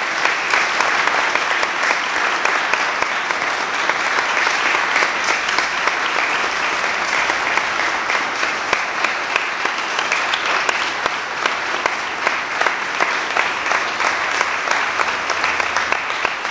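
A congregation applauding: a long, steady round of many people clapping together.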